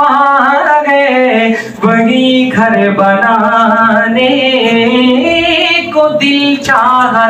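A man singing a devotional Urdu naat solo and unaccompanied into a microphone, with long, wavering held notes and a short break for breath about two seconds in.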